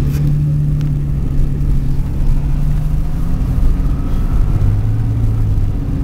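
Car engine and road rumble heard from inside the cabin while driving; a steady low engine hum that settles lower in pitch about four seconds in.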